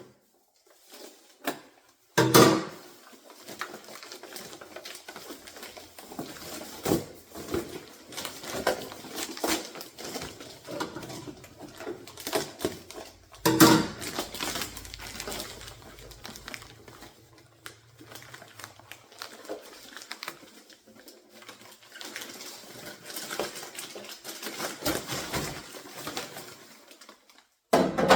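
Handling noise from unpacking a new refrigerator: packaging rustling and crackling, with scattered clicks and two louder knocks, one about two seconds in and one near the middle.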